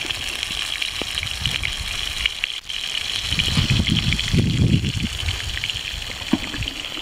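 Steady wash of small waves on a sandy beach, with a louder low rush from about three to five seconds in.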